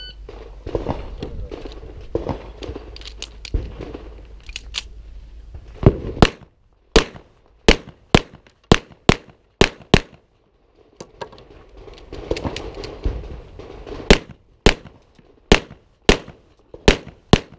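9mm pistol fired in quick strings of shots about half a second apart. The first string starts about six seconds in, and a second follows a pause of about four seconds.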